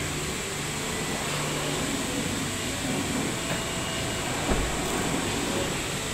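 Steady workshop background noise, a continuous hum and hiss, with a single dull low thump about four and a half seconds in as the car door is swung shut.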